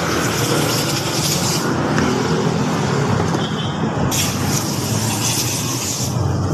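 Small motorcycle engine running steadily at idle. Twice, a hiss of about two seconds comes over it, the second starting about four seconds in.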